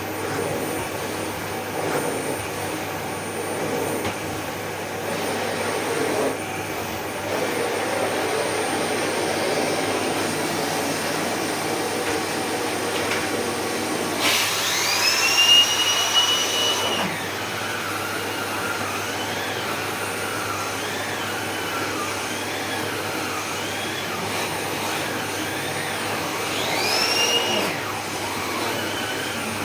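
Electrolux SilentPerformer Cyclonic bagless vacuum cleaner running with its turbobrush on carpet. About halfway through, a whine rises sharply in pitch, holds for about three seconds and drops away; a shorter rising whine comes near the end.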